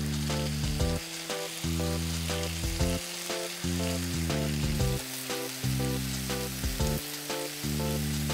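Chicken thigh pieces and eggplant slices sizzling in olive oil in a frying pan, a steady hiss with fine crackles. Background music with sustained low notes plays over it.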